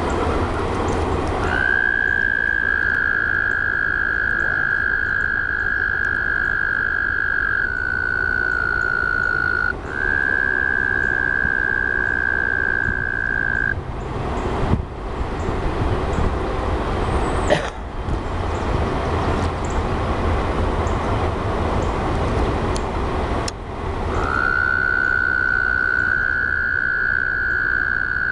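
Frogs calling in long, steady trills of several seconds each, two of them at slightly different pitches one after the other. The calling stops for about ten seconds in the middle, then starts again near the end. A steady low rumble runs underneath.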